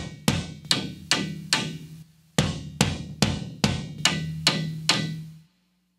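Karaoke backing track of a Japanese baseball hitting march (cheering song) at its closing chant section, with no voices. A drum is struck in a steady beat of about two and a half hits a second, in two phrases with a short pause between, over a low held note. The track ends about five and a half seconds in.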